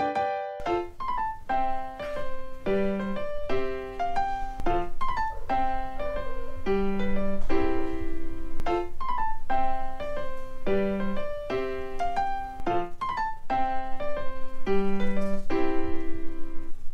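Background music: a light piano melody over a steady low beat.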